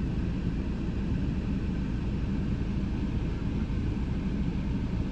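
A steady low rumble with no clear rhythm or pitch changes.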